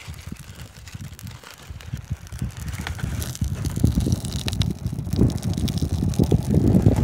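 Birch bark fire burning, with faint scattered crackles, under a low rumbling buffeting of wind on the microphone that grows louder from about halfway through.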